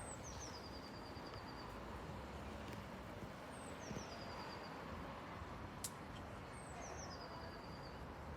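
A small songbird singing the same short phrase three times, each a high note falling into a quick even trill, over faint steady background noise. A single sharp click comes about six seconds in.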